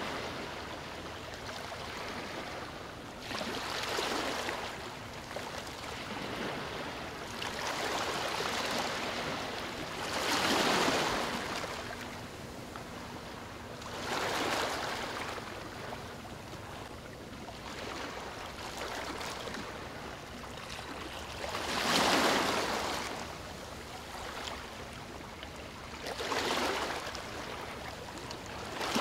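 Ocean waves and surf: a steady wash of water with surges that swell and fade every few seconds, two of them louder than the rest.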